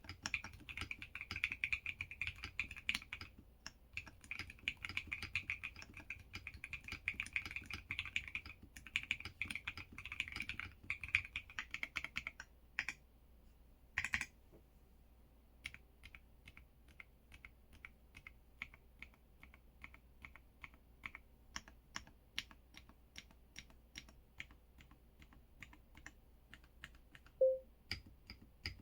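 EPOMAKER x LEOBOG K81 Pro mechanical keyboard being typed on in a sound test: rapid continuous keystrokes for about twelve seconds, then a short pause, then slower single keystrokes, a few a second. A brief low thump comes near the end.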